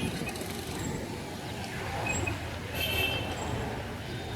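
Busy outdoor street ambience: a steady hum of traffic and distant voices, with a short high squeak about three seconds in.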